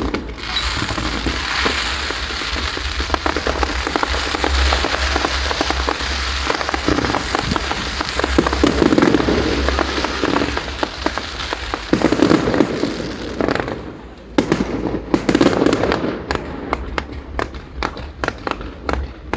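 Aerial fireworks going off in a dense run of crackling and popping bursts. About 14 seconds in the run thins out, then carries on as scattered sharp pops.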